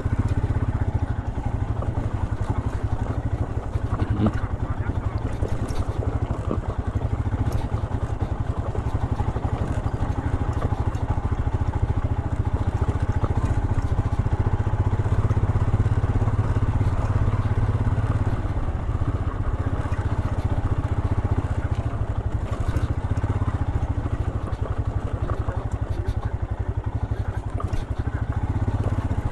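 Royal Enfield Himalayan BS6's single-cylinder engine running steadily as the motorcycle is ridden along a trail, with a few brief knocks.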